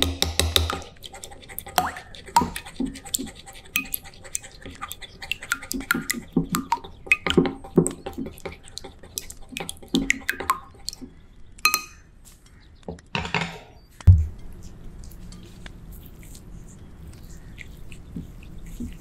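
Raw eggs being beaten with a wooden utensil in a ceramic bowl: quick, irregular clacks and scrapes of wood on the bowl with wet slapping of the egg. About fourteen seconds in this gives way to a single loud thump, then softer, wet handling sounds as a rice ball is dipped in the beaten egg.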